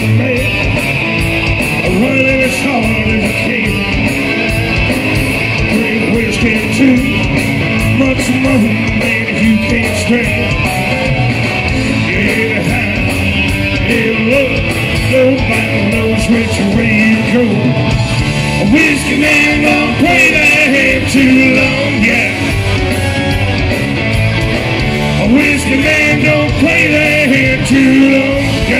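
Southern rock band playing live: electric guitars, keyboards and drums, with a lead singer, loud and continuous.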